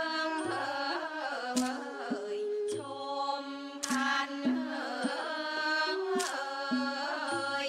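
Thai classical music: a sustained, ornamented melody line that slides between held notes, over bright percussion strikes about every two seconds and low drum beats in between.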